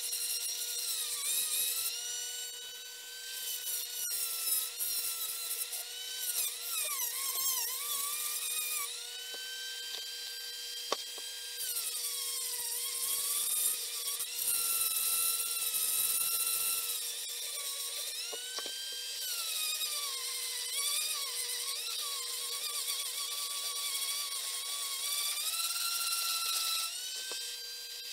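Flexible-shaft rotary tool running at high speed and grinding on a motorcycle engine's aluminium cylinder casting. Its high whine dips in pitch again and again as the bit bears into the metal, then climbs back when the load eases.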